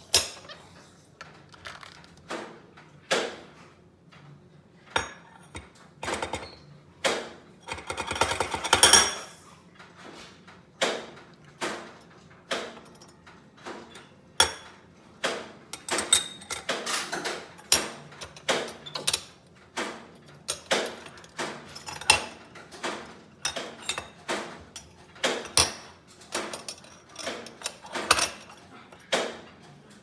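Pieces of a stainless steel moka pot and a metal spoon handled by a capuchin monkey: irregular clinks, taps and knocks of metal on metal, with a quick loud rattle about eight seconds in.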